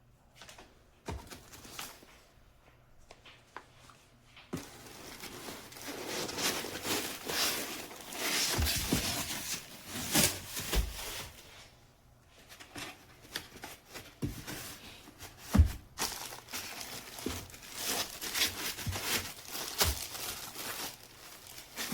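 Plastic wrapping crinkling and rustling in irregular spells, with scattered knocks and clicks of handled parts; one knock about two-thirds of the way through is the loudest.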